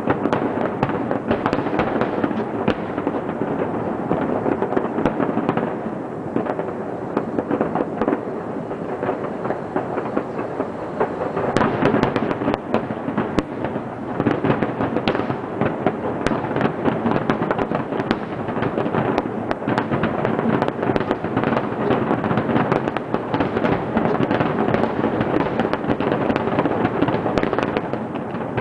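Aerial fireworks shells bursting in a continuous barrage of overlapping bangs and crackles, thinning slightly about six seconds in and growing denser again from about twelve seconds.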